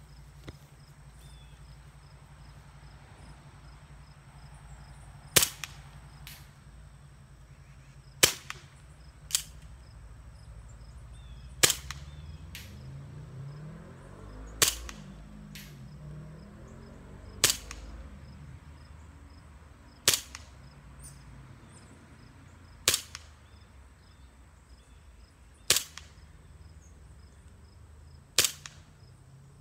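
1911 pistol fired nine times in slow, single, aimed shots about three seconds apart, each a sharp crack with a short tail. A few shots are followed about a second later by a fainter crack.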